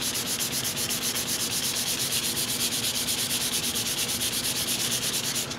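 Walnut rifle stock being wet-sanded by hand with 180-grit wet-or-dry sandpaper and Tru Oil gunstock finish. The paper rasps in rapid, even back-and-forth strokes as it cuts the wood into a slurry of wood dust and oil that fills the open grain.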